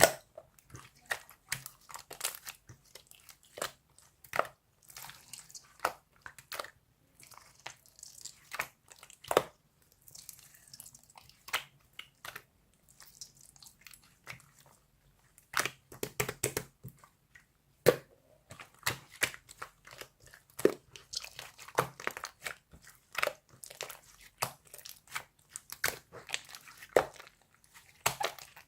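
Yellow clear slime being squished and poked by hand, giving a run of irregular sticky pops and clicks.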